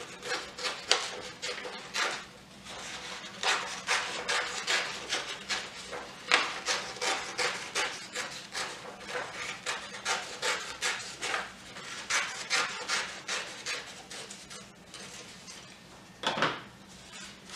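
Scissors cutting a circle out of a sheet of construction paper: a run of crisp snips, two or three a second, that thins out near the end.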